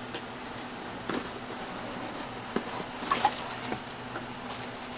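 Cardboard plastic-model kit box being handled and its lid lifted off: scattered light scrapes, rustles and taps, with a few sharper knocks around two and a half to three seconds in, over a faint steady hum.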